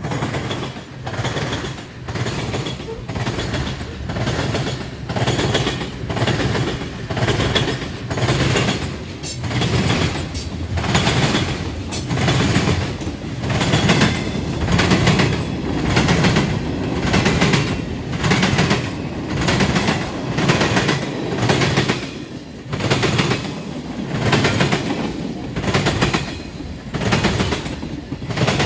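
Manifest freight train's cars rolling across a railroad diamond crossing: steel wheels bang over the gaps in the crossing in quick clattering clusters, about once a second, over the steady rumble of the passing cars.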